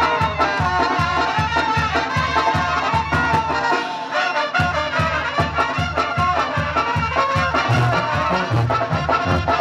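Live Mexican brass band (banda) playing a dance tune: tuba bass pulsing on a steady beat under trumpets and trombones. The bass drops out for about half a second just after the middle, then comes back in.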